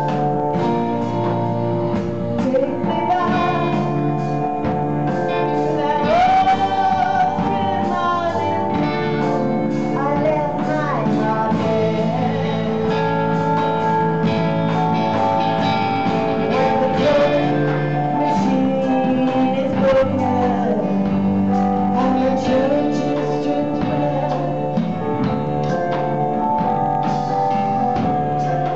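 Live band playing a slow blues-style song: a woman sings over electric guitar, Roland FP-7 digital piano and drums.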